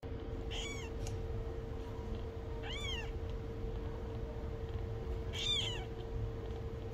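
A 10-to-15-day-old Korean shorthair kitten gives three high-pitched mews about two seconds apart, each rising and then falling in pitch, over a faint steady hum.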